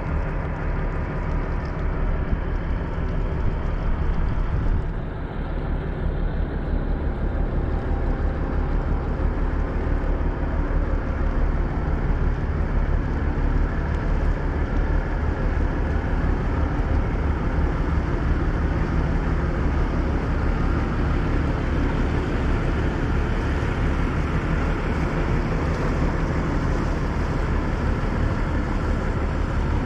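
River passenger ferry's engine running steadily, a low drone with a steady hum beneath it.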